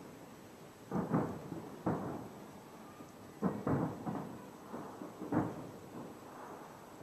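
Distant aerial firework shells bursting: about seven muffled booms, some close together in pairs, each trailing off in an echo.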